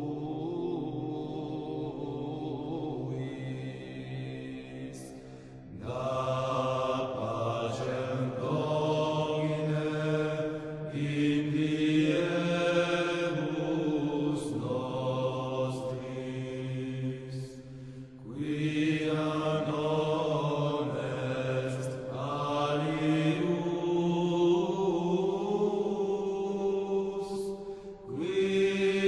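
Background music: slow, chant-like vocal music of long held notes over a steady low drone, moving in phrases of about four seconds, softer for the first few seconds.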